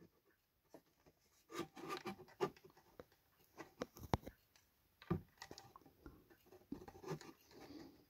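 Small plastic wire connectors and their thin leads being handled and pushed into sockets on a circuit board: faint scattered clicks and rustles.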